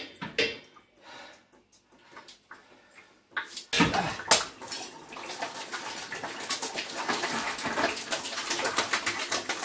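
Water from a heating system's drained expansion vessel splashing and gurgling out into a bucket in irregular spurts. The water starts after a few quieter seconds with a sudden knock about a third of the way in, then runs on and grows a little louder. The vessel has drawn a vacuum as it empties.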